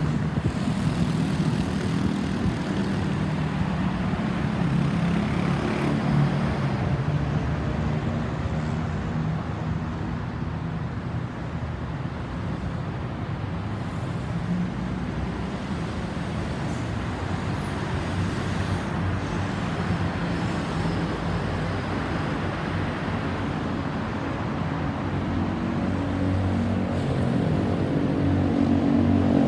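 Road traffic with motor vehicle engines running close by. Near the end a vehicle's engine gets louder and rises in pitch as it pulls away.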